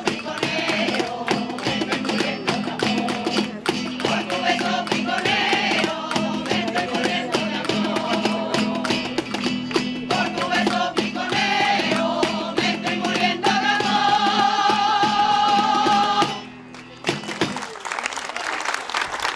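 A women's choir singing a Spanish folk song to acoustic guitar, with steady hand clapping on the beat. Near the end they hold one long final note that stops suddenly, and applause follows.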